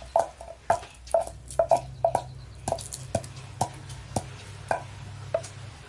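About a dozen short, sharp clicks and taps at an uneven pace, made as hands handle small items, over a faint steady low hum.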